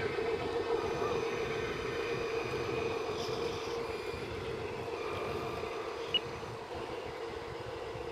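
Radio-controlled Broom 44 model cruiser under way, giving a steady engine hum from the model's built-in sound unit. A short tick about six seconds in.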